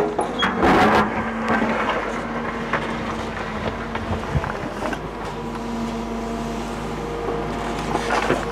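Hydraulic excavator's diesel engine running steadily under load while its bucket digs into a rubble-filled trench. There are a few sharp knocks in the first second and a dull thump about four seconds in.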